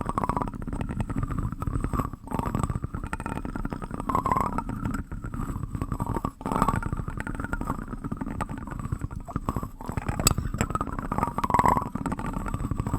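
Close-miked ASMR spoon trigger with a plastic spoon: a dense, continuous run of small clicks and rubbing over a low rumble, with brief pauses about two seconds in and again past the middle.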